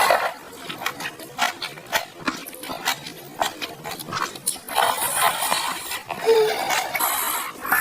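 Close-miked eating sounds of instant rice noodles in sauce: wet slurps, with the loudest near the start and again around five seconds in and near the end, between rapid smacking and chewing clicks.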